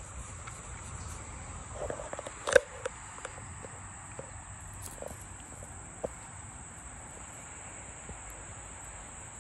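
A steady, high-pitched chorus of insects, with a few faint clicks and one sharper knock about two and a half seconds in.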